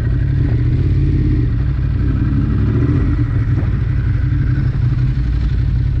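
A motor vehicle's engine running steadily under way, with a constant low engine note and road noise.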